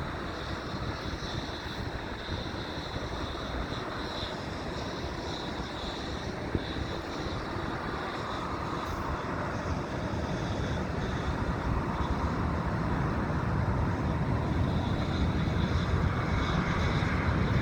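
Aircraft engines on takeoff: a noisy rumble that grows steadily louder through the second half as the low end builds.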